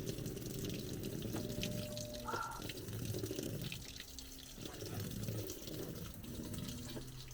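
Water running and splashing steadily, with a few faint steady tones underneath.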